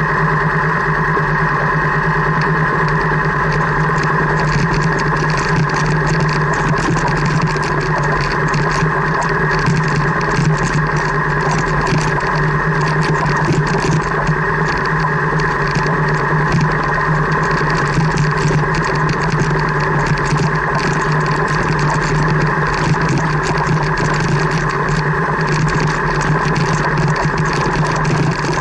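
Car engine running steadily at low speed, with tyres crackling and crunching over a gravel track, heard from inside the car.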